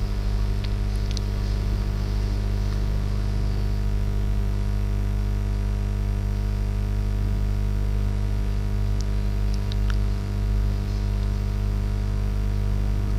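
Low, steady electrical mains hum, a buzz made of several unchanging tones, with a few faint clicks about nine to ten seconds in.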